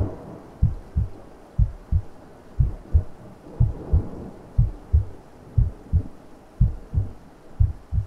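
Heartbeat sound effect: steady pairs of low thumps (lub-dub), about one beat a second.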